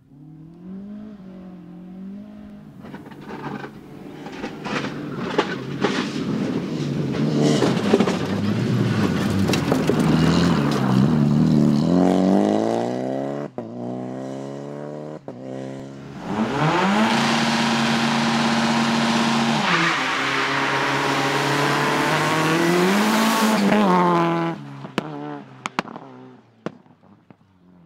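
Rally car engine at full throttle, its revs climbing with two quick gear changes, then held high for several seconds before cutting off sharply, followed by a few sharp cracks as it dies away.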